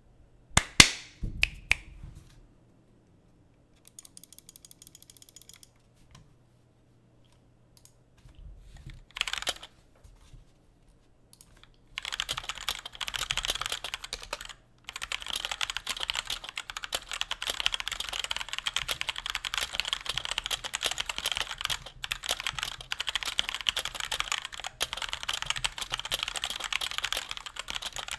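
Typing on a Cooler Master CK530 mechanical keyboard with Gateron Red linear switches, with a chalky key sound. A few separate key presses and short runs of keystrokes come first, then steady fast typing fills the second half, with one short pause.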